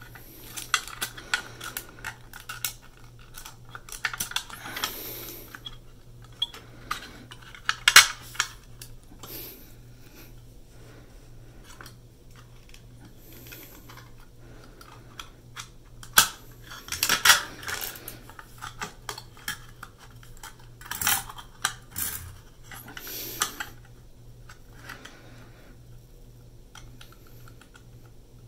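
Irregular clicks and light metallic clinks of small hardware being handled: an SSD, screws and the PS4 Slim's hard drive caddy being fitted together by hand. The clinks come in short clusters with quiet gaps between, over a faint steady hum.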